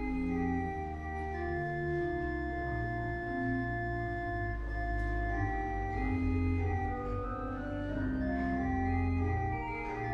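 Church organ playing slow, sustained chords over a deep held bass, the notes changing every second or two.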